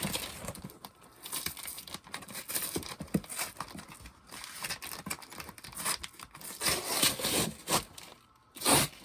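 A mystery box's packaging being torn and ripped open by hand, with irregular tearing, scraping and crinkling strokes.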